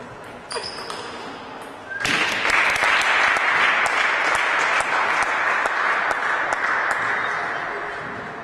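Spectators applauding a won point in a table tennis match. The applause starts abruptly about two seconds in and slowly dies away, after a few sharp clicks of the ping-pong ball at the end of the rally.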